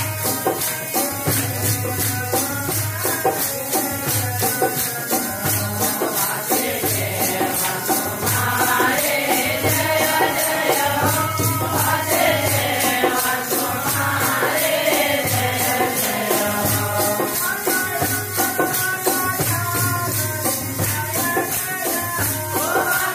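Devotional bhajan music: jingling hand percussion keeps a fast, steady beat over a low drum, with group singing of a chant-like melody, strongest in the middle.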